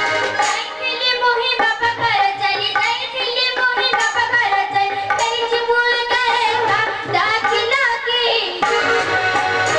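Folk theatre song: a high, child-like voice singing a winding melody over the steady reed drone of a harmonium and a hand drum keeping a beat. The voice stops near the end while the instruments play on.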